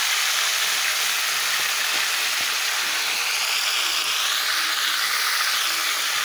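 Chunks of pork frying in hot lard and garlic in a pot, a steady sizzle.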